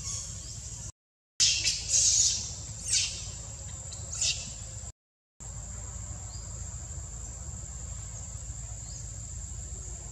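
Steady high-pitched drone of insects, with a few loud shrill calls in the first half. The sound cuts out completely twice for a moment.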